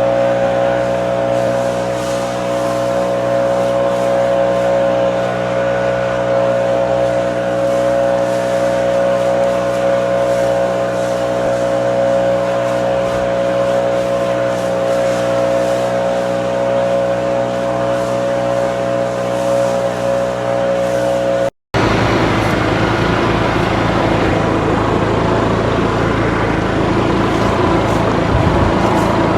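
An engine running steadily at a constant speed. About 21 seconds in it cuts off abruptly and gives way to a rougher, noisier engine sound.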